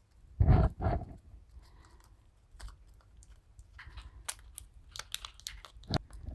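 Handling noise from a plastic syringe and sealant bottle while tubeless tyre sealant is drawn up. There is a loud rustling knock about half a second in, then scattered light plastic clicks and taps.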